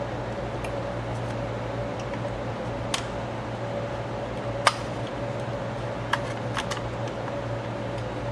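A handful of short clicks and taps as parts of a Reflecta slide projector are handled and fitted together; the loudest comes about halfway through. A steady background hum runs underneath.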